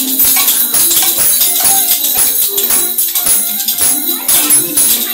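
Live music being played, with a high jingling percussion beat at an even pace over a melody.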